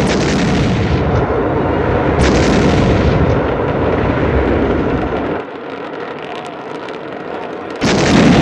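Loud explosion blast with a dense rumble, which cuts off abruptly about five seconds in. A second loud blast starts near the end.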